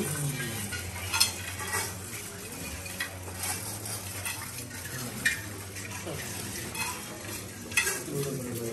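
Many metal mandala offering plates being worked at once, rice grains poured and swept across them. A continuous rustle of grains with frequent metallic clinks and ticks, a few of them louder.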